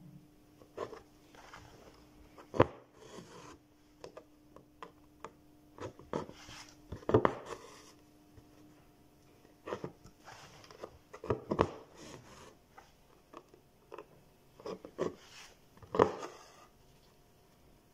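Embroidery needle pushed through cloth stretched taut in a hoop and the thread drawn through after it, as back stitches are worked: a sharp tap and short rasp every four or five seconds, with lighter rubbing of fingers on the fabric between.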